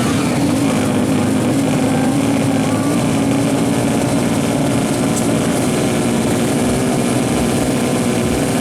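Drag-bike motorcycle engine running at a steady high pitch, held without much change.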